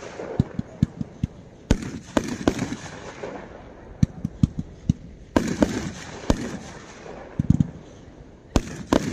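A five-shot consumer firework cake firing one shot every three to four seconds: three heavy launch thumps, each trailing a hiss as the shot climbs, with bursts of sharp pops as the shells break between launches.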